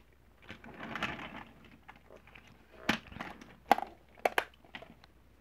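Plastic toy car hauler and die-cast toy cars being handled on a tabletop: a soft rustle, then a few sharp clicks and knocks about three and four seconds in.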